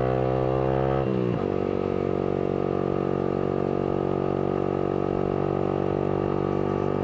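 Yamaha R15 V3's single-cylinder engine running through a Villan aftermarket exhaust under way. Its pitch climbs a little, drops sharply about a second in, then holds steady.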